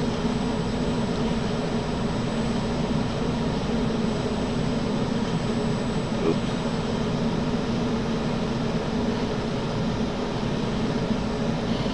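Steady fan-like machine hum and hiss with a low drone and a faint high whine, unchanging throughout.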